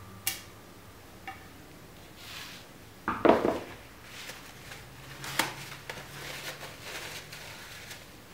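Downhill suspension fork lower legs set down on a workbench with a clunk about three seconds in, among lighter clicks of handled parts, then paper towel rustling as the seals are wiped.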